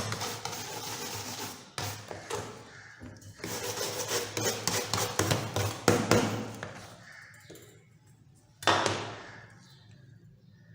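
Rasping hand-tool scraping on a workpiece, in quick repeated strokes. It comes in two runs, with a sharp loud stroke about six seconds in, then one last sudden stroke near the end that fades away.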